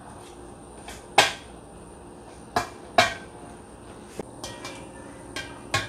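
Metal spoon clinking and knocking against a perforated stainless-steel strainer while stirring flour into small shrimp: a handful of sharp clinks, the loudest about a second in and about three seconds in, with lighter taps between.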